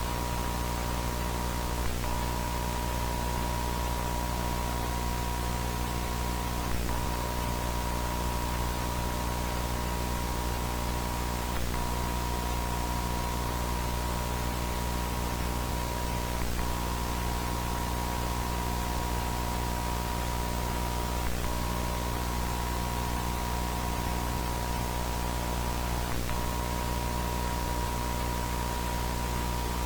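Simulated analog emergency-broadcast standby signal: a steady hiss of static with a continuous high test tone over a low electrical hum. The tone blips briefly about every five seconds.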